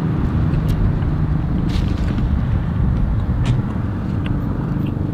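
Wind buffeting the microphone outdoors: a loud, uneven low rumble, with a few faint clicks.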